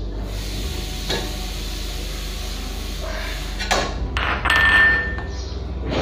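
Steel spatula knocking and scraping in a stainless-steel kadhai: a light knock about a second in, another a little before four seconds, then a louder scrape with a ringing metallic tone about four and a half seconds in.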